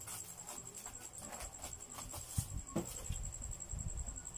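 Plastic bag wrapping on a parcel crinkling and rustling as it is handled and cut open with scissors, with a run of sharp crackles and clicks.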